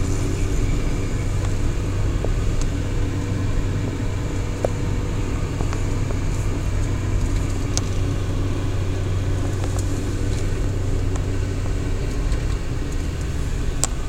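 Steady low drone of a car's engine and road noise, heard from inside the cabin as it drives up a winding mountain road, with a few faint ticks.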